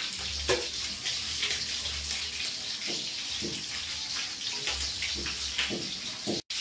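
Sprats frying in hot oil: a steady sizzle with scattered small crackles and pops, breaking off for an instant near the end.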